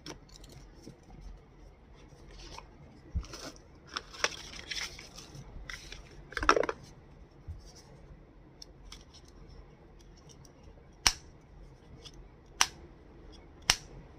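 Handling noises from unboxing a pair of earbuds: rustling of packaging and scattered sharp clicks, with the three loudest clicks in the last few seconds.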